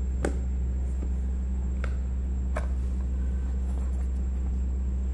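Steady low hum with a few light taps and clicks as a cardboard phone box and its packaging are handled.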